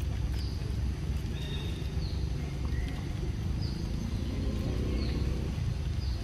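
Long-tailed macaque chewing and smacking on a ripe mango, over a steady low rumble. A short, high, falling chirp repeats every second or two.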